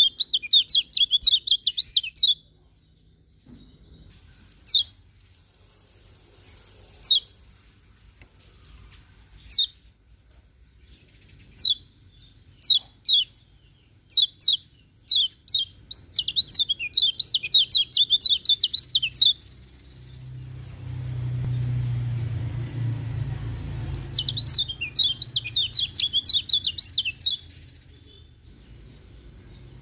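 Kecial kuning white-eye singing: bursts of fast, high chattering trills a few seconds long, with single sharp chirps every couple of seconds between them. A low rumble rises under the song about two-thirds of the way in.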